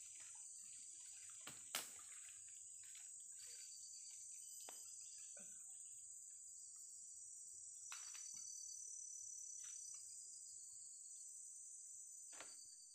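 Steady, high-pitched chorus of forest insects such as crickets, with a few faint clicks and rustles scattered through it. The sharpest click comes just under two seconds in.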